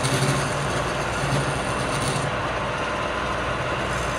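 Wood lathe running while a flat scraper cuts the inside of the spinning wooden workpiece: a steady motor hum under a rough scraping hiss that eases a little about halfway through.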